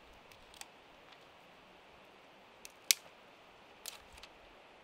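Dry twigs snapping as they are broken by hand: a handful of short, sharp cracks, the loudest about three seconds in.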